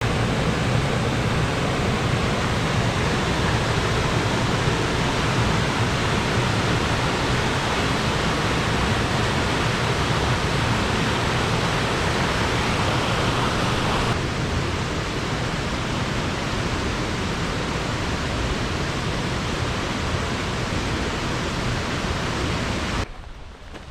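A loud, steady rushing noise in the open air. It changes in tone about two-thirds of the way through and drops away abruptly just before the end.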